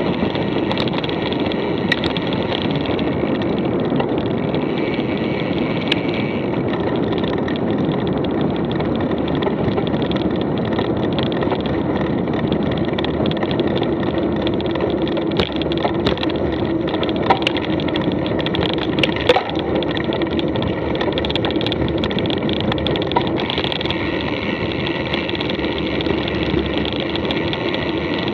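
Mountain bike being ridden: a steady rolling noise from the tyres on the trail, with scattered clicks and rattles from the bike, several of them in the middle of the stretch.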